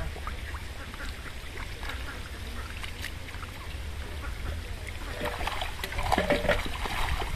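Fish splashing and thrashing at the surface of a crowded pond, louder about six seconds in, over a steady low rumble.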